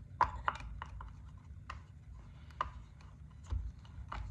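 Irregular small metal clicks and scrapes as a flat metal tool prods chainsaw chain links into the guide bar's groove, the links ticking against the bar.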